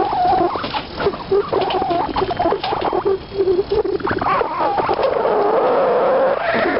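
An electric fishing reel's motor whining as it winds line in against a fish. Its pitch wavers up and down with the load, then steadies into a slowly rising whine.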